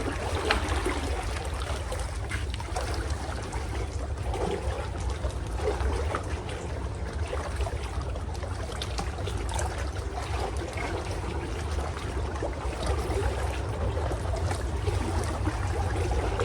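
Water trickling and lapping, a steady watery wash with small irregular ticks, over a constant low rumble.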